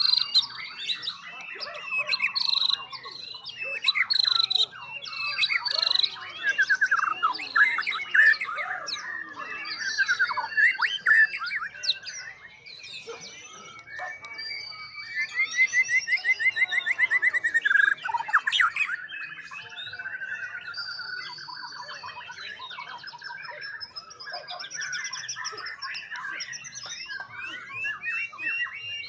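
White-rumped shamas singing: loud, varied whistled phrases and rapid trills, with several birds overlapping.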